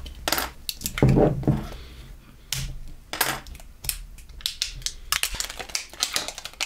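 Plastic outer wrap of a lithium-ion battery pack being torn and peeled off by hand, crinkling and crackling in irregular bursts.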